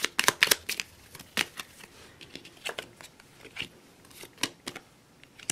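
A deck of playing-card-sized oracle cards being shuffled by hand: an irregular run of crisp card snaps and clicks, thick at first and sparser in the second half as a card is laid down on the spread.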